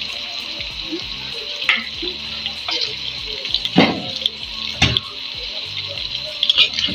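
Green chillies and sliced potatoes frying in hot oil in two pans: a steady sizzle with a few sharp pops.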